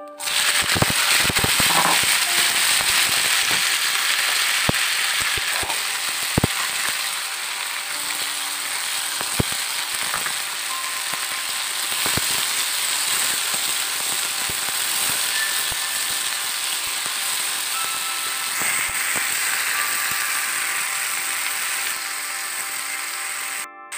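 Wet chopped green beans sizzling loudly in hot oil in a frying pan, a steady hiss that starts abruptly and eases slightly after the first few seconds. Scattered clicks and scrapes of a wooden spatula stirring the beans run through it.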